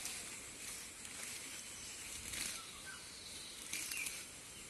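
Leafy weeds and taro plants rustling in a few short bursts as they are pushed aside by feet and hands, over a steady outdoor hiss.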